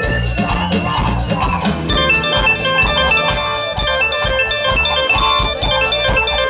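Background music: held keyboard notes over a steady beat.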